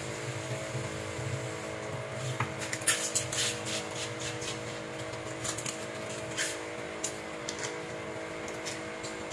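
Tap water running into a stainless-steel sink while thin plastic bags are filled and knotted shut, the plastic crinkling in a series of short crackles from about two seconds in. A steady hum runs underneath.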